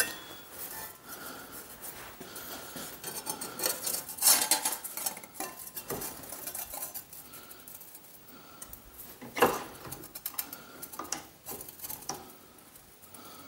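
Metal clinking and scraping as a cut sheet-steel piece is worked in a cast-iron bench vise and the vise handle is turned, with scattered clicks and two louder clanks about four and nine seconds in.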